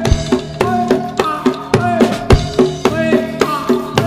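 Live Javanese jaranan gamelan music: busy drumming of several strikes a second, with drum-kit hits and drum strokes that bend in pitch, over steady ringing tones.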